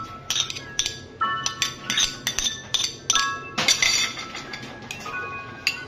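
Metal spoon clinking and scraping against a ceramic bowl while stirring a paste, a quick series of clicks. Light background music with bell-like notes plays underneath.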